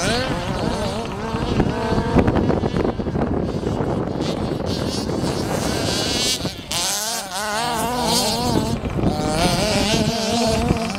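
Several 1/5-scale RC baja buggies' small two-stroke petrol engines running hard, their pitch rising and falling quickly as the throttle is blipped through the turns, with a short lull about two-thirds of the way through.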